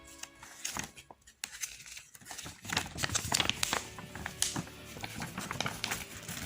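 Plastic packaging crinkling and rustling in short, irregular bursts as the contents of a card-game structure deck box, a wrapped playmat among them, are handled, over background music.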